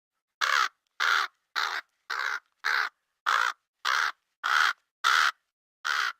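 Crow cawing: a steady series of ten short caws, about two a second, with silence between them.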